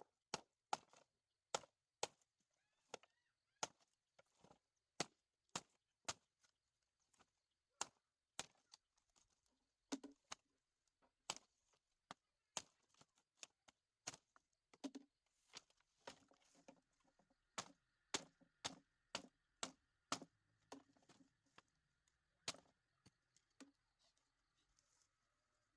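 Repeated sharp knocks of hand-tool strikes, about one to two a second at an uneven pace, some blows louder than others.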